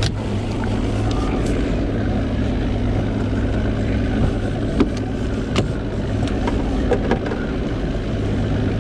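Boat's outboard motor running steadily with a low hum, with a few sharp clicks and knocks from a fishing rod being handled in its holder about halfway through.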